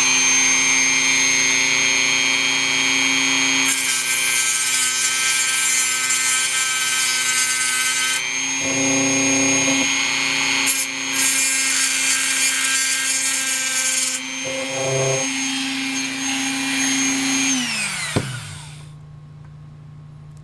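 Dremel rotary tool with a cutoff wheel running at high speed, grinding through the metal end cap of a ceramic cartridge fuse in two spells of harsh grinding noise of about four seconds each. The motor's pitch dips briefly twice, and near the end the motor winds down and stops.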